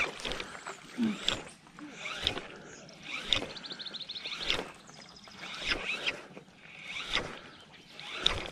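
Spinning reel being cranked on a retrieve, with a short knock about once a second and a quick run of rapid ticking about three and a half seconds in.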